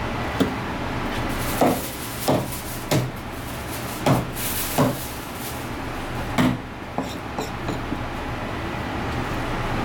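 Kitchen knife chopping through a flathead fish's backbone onto a plastic cutting board: about seven sharp knocks at uneven intervals, then a few fainter taps near the end. A steady hum runs underneath.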